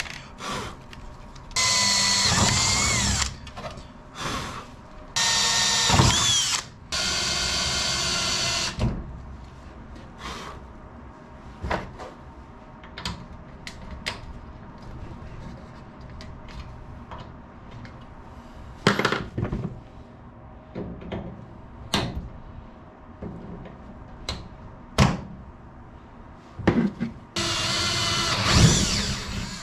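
Power drill drilling out rivets in an aircraft wing spar: four short bursts of motor whine, each a second or two long with the pitch shifting as the bit cuts. Between the bursts come scattered sharp clicks and knocks of metal and tools.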